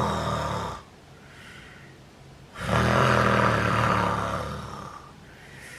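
A man's acted loud snoring: a rattling snore right at the start, a quiet breathy exhale, then a longer rattling snore of about two seconds in the middle that tails off.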